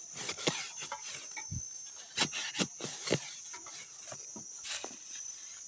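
A long-handled metal digging bar jabbing and scraping into sandy soil while digging out a wild yam tuber: irregular dull thuds and crunches, about one or two a second.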